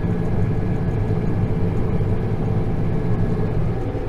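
Tractor engine running steadily under load while pulling a round baler through straw, heard from inside the cab as an even low hum.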